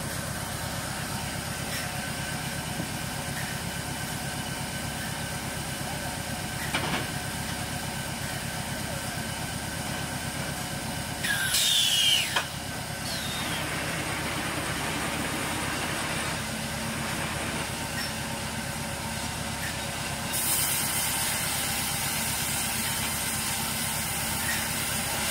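Automatic log-sawing line running: a steady mechanical hum with several held tones. About halfway through a short, loud squeal slides down in pitch, and over the last five seconds a steady high hiss joins the hum.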